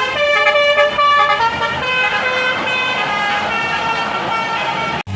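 Basuri multi-tone 'telolet' bus horn playing a quick melody of changing notes, with road traffic noise underneath.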